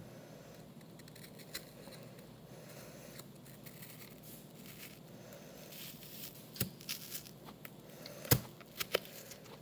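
Quiet kitchen handling as apple slices are cut and laid out on a cookie sheet: scattered light taps and clicks, with a sharper knock a little over eight seconds in and another just before the end.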